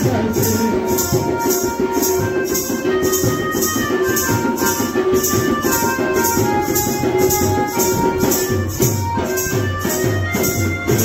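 Music for a tribal dance performance: a quick, even shaker or tambourine beat over a low drum, with a melody of held notes.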